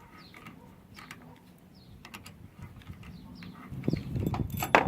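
Metal clicks and rattles of needle-nose pliers gripping and pulling a small nut off a tailgate cable limiter. They start about three-quarters of the way in, with a sharp click near the end. Faint short chirps come before them.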